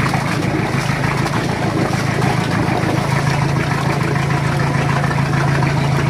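Nissan 2.5-litre diesel boat engine running steadily at idle, its wet exhaust discharging cooling seawater with a splash from the hull outlet.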